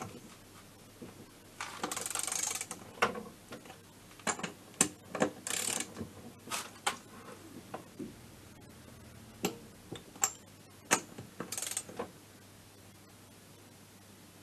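Socket ratchet clicking in short rasping bursts as the cylinder head nuts of a scooter engine are run down, three bursts in all, with scattered sharp clicks and knocks of metal tools between them.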